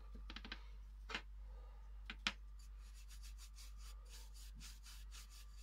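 Bristle brush dabbing and rubbing metallic finger wax onto a rough, painted glass vase: a few light taps in the first couple of seconds, then faint, quick scratchy brushing strokes.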